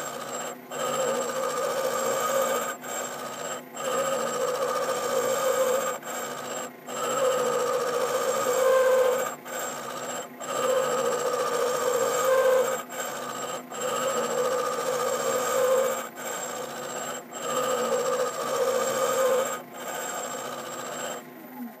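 Left-hand-flute end mill cutting the cast iron of a lathe tailstock housing in light passes at about 450 RPM, with a steady ringing tone from the cut. The sound swells and dips every second or two and stops just before the end.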